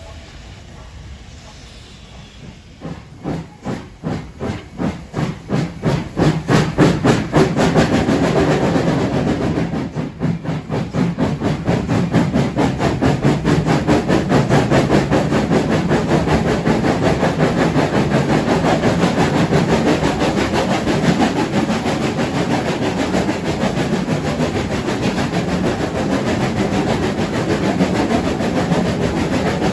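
Steam locomotive getting under way: exhaust chuffs start about three seconds in and come faster and faster as it gathers speed, then blend into a steady rush of exhaust and steam hiss as the train runs along.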